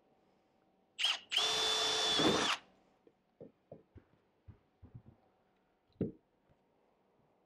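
Cordless drill drilling a rivet hole: a short blip about a second in, then about a second of steady running with a high whine. After it come a few light knocks and clunks.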